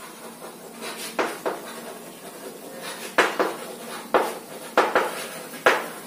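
Chalk writing on a blackboard: an irregular run of sharp taps and short scratchy strokes as words are written, the strongest ones in the second half.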